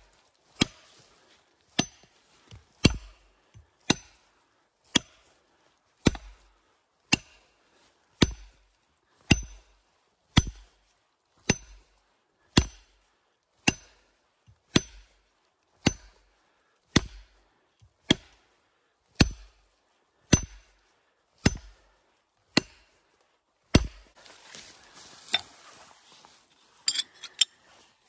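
Chopping blows from a hand tool while felling a tree, about one a second, each a sharp hit with a brief ring, some twenty in a steady rhythm. They stop about four seconds before the end, where rustling and a few lighter knocks follow.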